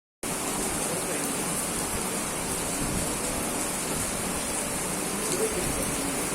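Steady rain falling and splashing on hard surfaces, an even hiss with scattered drop ticks.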